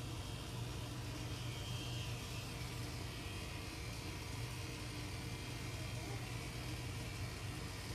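Steady electric motor hum with an even hiss over it, unchanging throughout.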